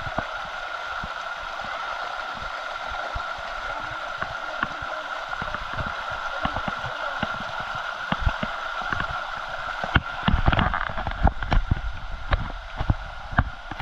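Waterfall and stream water rushing steadily, with irregular low thumps that grow denser and louder about ten seconds in.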